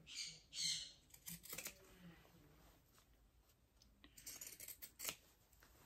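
Pinking shears snipping through the seam allowance of a sewn fabric seam to trim it. There are several short, separate snips in the first two seconds, a pause, then a few more near the end.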